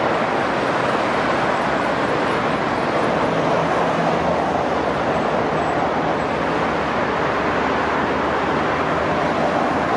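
Steady, even rushing noise with no distinct events, joined about three and a half seconds in by a faint low engine-like hum.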